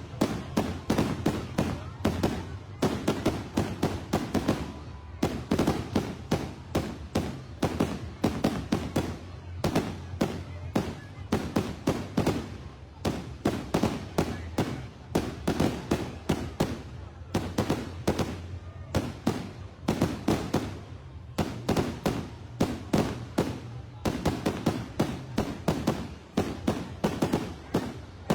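Fireworks display: a rapid, nearly continuous barrage of aerial shell bangs and crackles, several a second, with only brief lulls.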